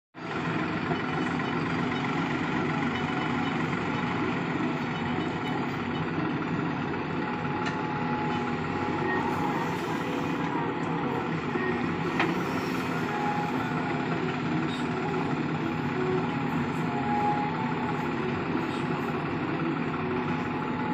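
JCB backhoe loader's diesel engine running steadily under load as the backhoe digs and dumps soil.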